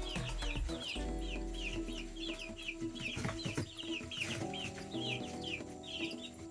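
A flock of half-grown chicks peeping continually: short, high, falling cheeps, several a second.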